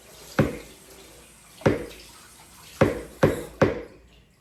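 An egg tapped five times against the rim of a mixing bowl to crack it, in sharp knocks, three of them close together near the end. A tap runs with a steady hiss until just before the end.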